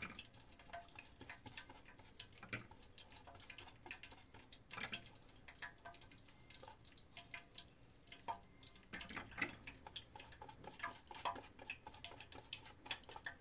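Faint rustling and light scattered taps of hands folding and rolling a sheet of brik pastry, with a pastry brush dabbing its edges.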